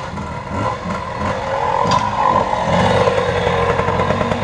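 Vintage trials motorcycle engine running as the bike is ridden slowly through a rocky section, getting louder as it comes close and loudest about three seconds in.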